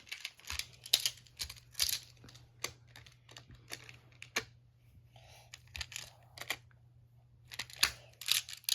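Plastic magnetic building tiles clicking and clacking together as they are snapped into place, in a run of irregular sharp clicks.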